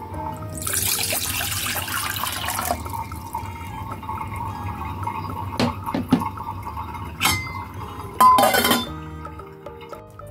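Water poured into a stainless steel saucepan for about two seconds, followed by a few sharp knocks and a loud metallic clatter near the end as the steel lid is set on the pot. Faint background music runs underneath.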